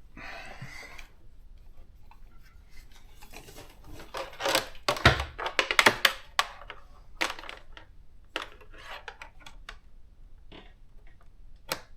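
Plastic clicks, knocks and light rattling from handling a small Canon thermal typewriter, opening its cartridge compartments at the front, with a busy run of clicks around the middle.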